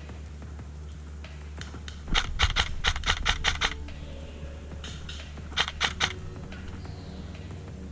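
Airsoft gun firing a rapid string of about nine shots, then a short burst of three more a couple of seconds later, over a steady low hum.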